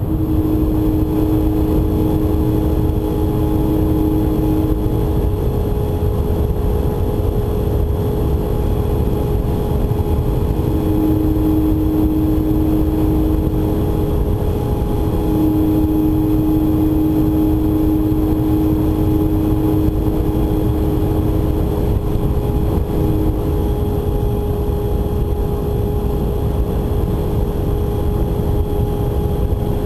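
Onboard recording of a small RC model aircraft's electric motor and propeller whining steadily in flight, with a second, lower tone that comes and goes. A constant low rumble of wind on the onboard camera lies underneath.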